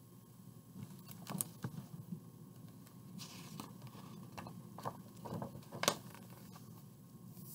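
Pages of a large picture book being handled and turned: a few soft taps and paper rustles, with one short papery swish about three seconds in as a page goes over.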